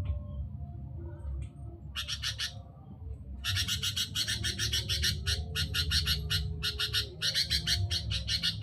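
Sooty-headed bulbul (kutilang) giving a harsh, rapid chattering call of quickly repeated notes. There is a short burst about two seconds in, then the chatter runs on without a break from about three and a half seconds. A steady low hum lies underneath.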